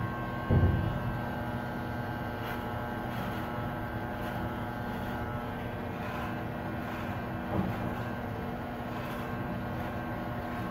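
Electric hair clippers buzzing steadily as they cut hair, with a dull bump about half a second in and a fainter one near seven and a half seconds.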